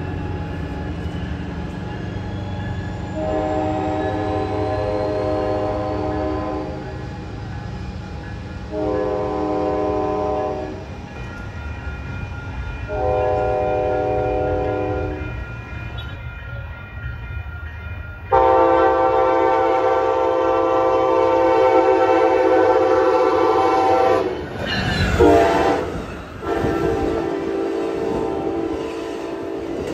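Amtrak passenger train's horn sounding a string of blasts as the train approaches: three blasts in the first half, then a long, louder blast. The pitch drops as the locomotive passes about 25 seconds in, and another blast follows near the end. Under the horn runs a train's low rumble, and near the end the clickety-clack of the passing cars.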